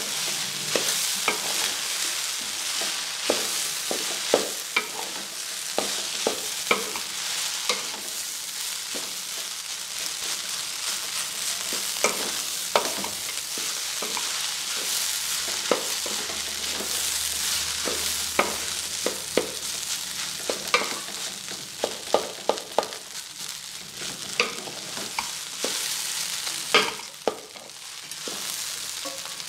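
Fried rice sizzling in a large metal pot as it is stirred and tossed with a spatula, with frequent sharp clicks and scrapes of the spatula against the pot over a steady hiss.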